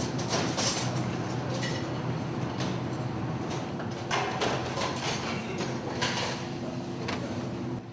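Clatter of plates and trays being set down and slid along a canteen serving counter: irregular knocks and clinks over a steady low hum.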